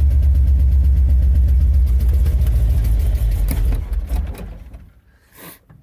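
Ramp truck's engine idling just after a cold start, with a light lifter tick. About four seconds in, the engine sound dies away to near quiet.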